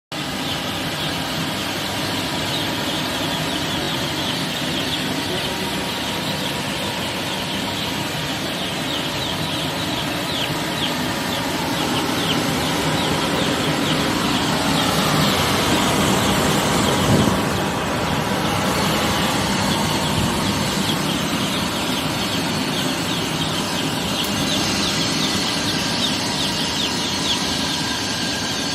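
Many young chicks peeping continuously over a steady rushing noise, consistent with an LPG space heater running in a poultry shed. About two-thirds of the way through, the noise swells to a brief louder peak.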